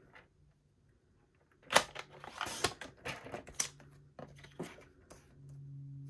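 Cardstock and a paper trimmer being handled: a sharp click about a second and a half in, then paper sliding and rustling over the trimmer with several more light clicks. A faint low steady hum comes in near the end.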